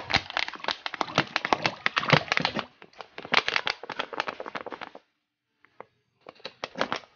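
Plastic bottle of wet plaster of Paris mix being squeezed, the mix spluttering out of the nozzle in a rapid run of clicks and splats. It comes in three stretches, with a short break at about three seconds and a longer one after about five seconds.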